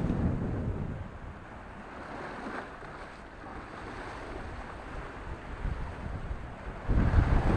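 Sea surf washing against a rocky shore, with wind buffeting the microphone. The wind rumble eases after about a second and comes back strongly near the end.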